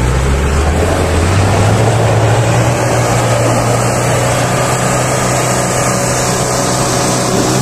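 Soft-top 4x4 jeep's engine revving hard under load as it climbs a loose dirt slope with its wheels spinning and throwing up dirt. The engine note rises about half a second in and then holds steady.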